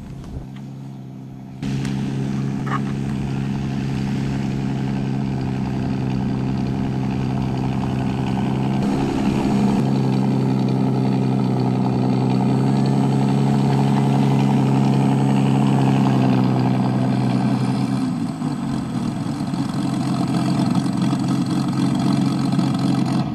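Onboard sound generator of an electric RC Spitfire playing a Rolls-Royce Merlin V12 engine sound through its speaker: a loud, steady engine drone that cuts in suddenly a couple of seconds in. For the last few seconds it turns rougher and noisier.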